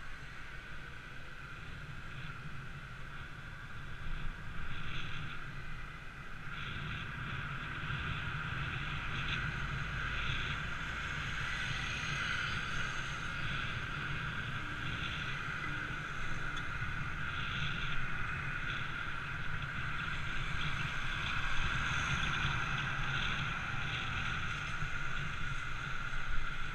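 Steady rush of wind and road noise on the microphone of a camera riding along a road, with no clear engine note. It grows louder from about six seconds in as the pace picks up, with a few small knocks over it.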